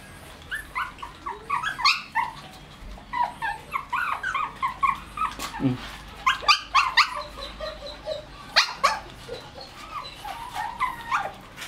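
A litter of Shih Tzu puppies, just under two months old, yipping and whining in many short, high-pitched calls that overlap.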